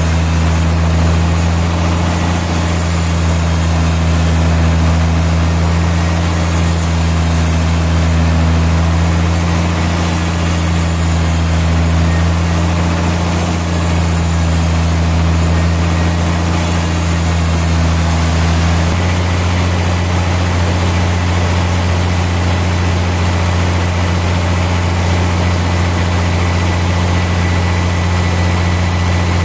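Sawmill machinery engine running steadily with a deep, constant hum; the hum changes slightly and abruptly about two-thirds of the way through.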